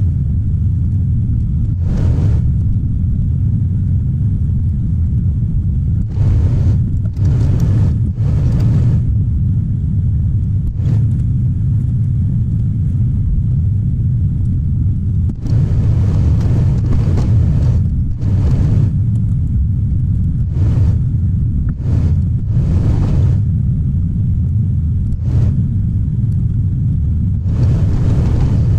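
Caterpillar 973C track loader's diesel engine running steadily under work, with short rushes of noise every few seconds over it.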